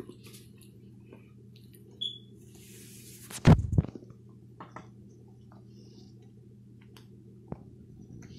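A toddler eating a biscuit, with small scattered mouth clicks over a steady low hum. One loud thump on the plastic high-chair tray comes about three and a half seconds in.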